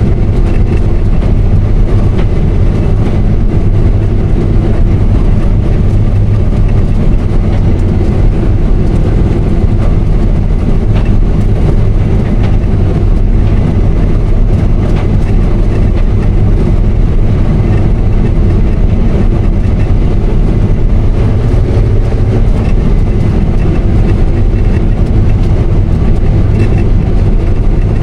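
Combine harvester running steadily under load while cutting wheat: a constant, loud low engine drone with a whir of machinery over it.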